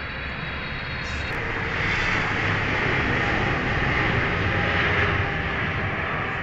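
Jet airliner flying low overhead, its engine roar swelling to its loudest about four to five seconds in, then easing slightly.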